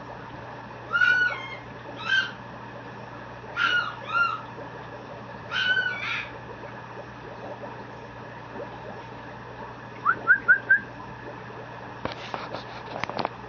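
Mame shiba puppy whining: four rounds of high-pitched, wavering whimpers, then four quick rising yips a little after halfway. A few sharp clicks near the end.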